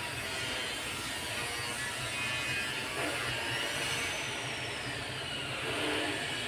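Hot-air SMD rework station blowing steadily on a phone motherboard shield to melt its solder: a continuous airy hiss over a low hum, with a faint whistle that rises and falls in pitch about halfway through.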